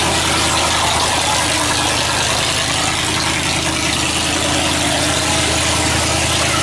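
Exposed supercharged V8 of a hot rod idling loudly as the car creeps past at walking pace, in a line of classic cars. The engine note holds steady, with no revving.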